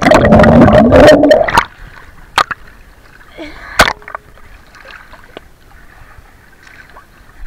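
Swimming-pool water splashing loudly right at the microphone for about a second and a half, then quieter lapping with a few sharp drips and knocks.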